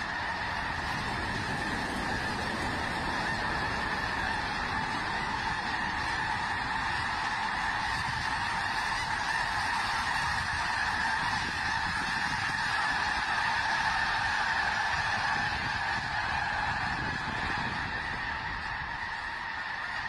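A huge flock of snow geese honking all at once as they lift off: a dense, continuous din of overlapping calls that swells slightly past the middle.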